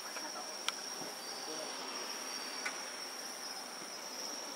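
Night insects, crickets among them, chirring in a steady high-pitched drone. Two sharp clicks cut through it, one under a second in and another about two seconds later.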